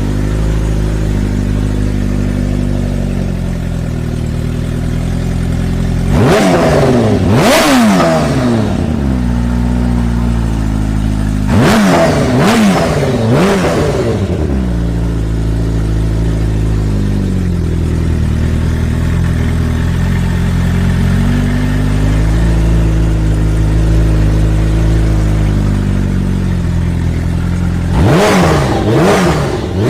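Turbocharged Suzuki Hayabusa (TTS SuperBusa) inline-four idling steadily, with quick throttle blips in three bursts: about six seconds in, about twelve seconds in, and near the end. Each rev rises sharply and falls straight back to idle.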